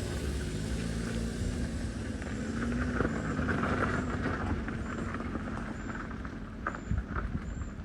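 A motor vehicle engine running steadily under a broad rushing noise.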